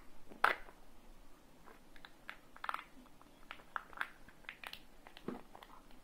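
Kinder Joy egg's plastic toy capsule being unsealed and handled: the lid seal crinkles as it is peeled off, with one sharp crackle about half a second in, then scattered light crinkles and plastic clicks as the small toy pieces are picked out.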